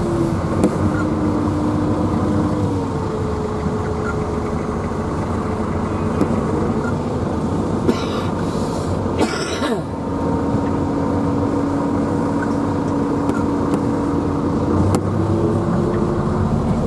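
Tractor engine running at low speed, heard from inside the cab as it moves off, its pitch stepping up and down a few times. Two brief rushing noises come about eight and nine and a half seconds in.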